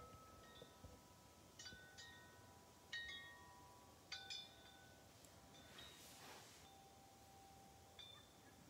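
Faint wind chime stirred by a breeze: scattered strikes in small clusters, each leaving clear high notes ringing on, with a lull in the middle where a brief soft hiss passes.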